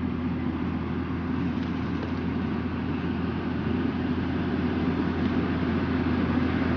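Tractor engine running steadily under load, a continuous low drone with a constant pitch.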